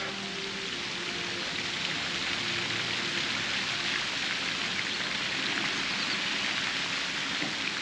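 Steady hiss of falling, splashing water.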